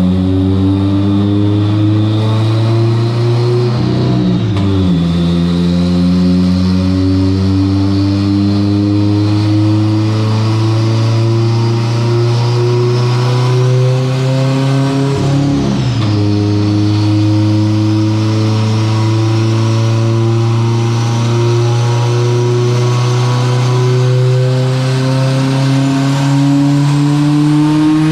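Turbocharged flat-four engine of a 2011 Subaru WRX STI running hard, its pitch climbing slowly and dipping briefly twice, about 4 and 15 seconds in, before rising again. A faint high whine rides above the engine note.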